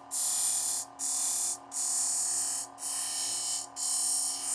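Serrated knife edge drawn against a spinning leather honing wheel on a Shop Fox variable-speed bench grinder: five hissing passes, about one a second, over the steady hum of the grinder motor. The honing strips off the burr raised by sharpening.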